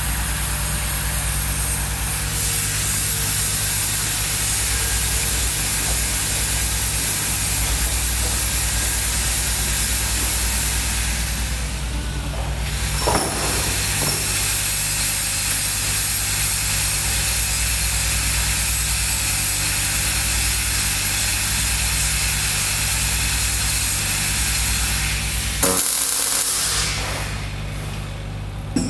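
Pulsed MIG welding arc from a Miller 255 running in long steady stretches: an even hiss over a low steady hum. It breaks off briefly about halfway, restarts, and cuts off suddenly a few seconds before the end.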